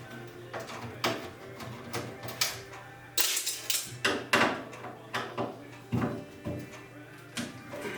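Irregular metal clanks, knocks and rattles as a microwave oven's sheet-metal casing and parts are worked apart by hand, some with a brief metallic ring, over a low steady hum.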